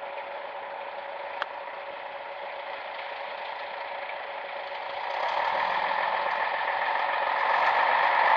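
Scania SBA111 military truck's diesel engine running at low speed as the truck crawls over rough ground, with a steady whine, growing louder about five seconds in as it comes closer. A single sharp click about a second and a half in.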